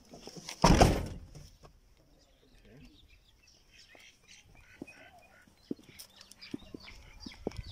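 A car door shutting with one heavy thud about a second in, followed by faint birdsong and a few light clicks.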